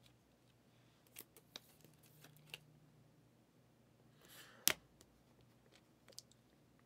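Faint plastic ticks and rustles of a sleeved trading card being slid into a rigid clear plastic toploader, then a short scrape ending in one sharp plastic click about four and a half seconds in.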